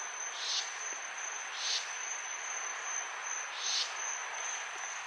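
Crickets calling in a steady high-pitched trill, with a softer, lower rasping insect call repeating every second or two.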